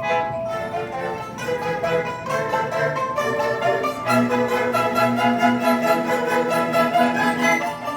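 Chinese traditional orchestra playing, with bowed strings over plucked strings in a busy melodic passage. A low sustained note enters about halfway through and holds.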